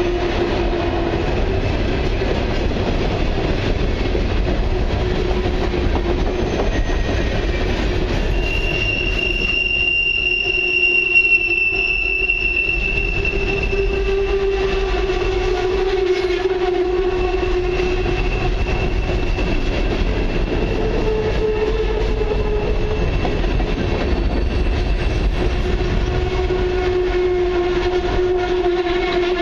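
Empty steel coal hopper cars rolling past close by on a curve: a steady rumble of wheels on rail with drawn-out wheel squeal in several tones that drift in pitch, loudest about ten seconds in.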